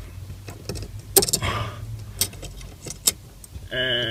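Small metal clicks and clinks as the bolts on the back of a brushed-aluminium pedal cover are pushed into holes drilled in the brake pedal, with one louder clink about a second in.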